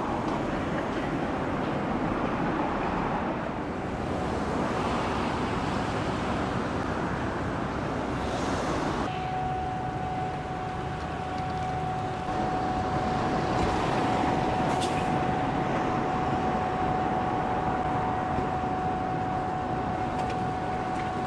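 Steady noise of heavy construction machinery running. About nine seconds in the sound changes and a steady high whine sets in and holds.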